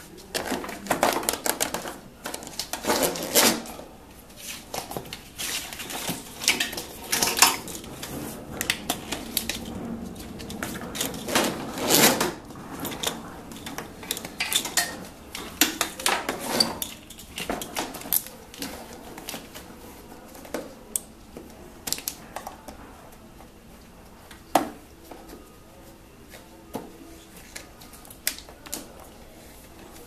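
Irregular clicks, rattles and scrapes of a wiring harness in plastic split loom, with its plug connectors, being handled and pushed up through a golf cart's front trap door. The handling is busiest in the first two-thirds and thins out toward the end.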